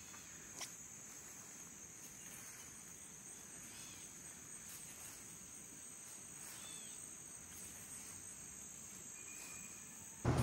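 A steady, high-pitched insect chorus of chirring field insects, with a single soft tap just after the start.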